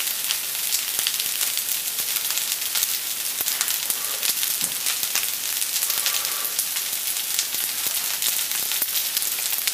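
Pad see ew (wide rice noodles and broccoli) frying in a nonstick pan: a steady high sizzle with many small crackles.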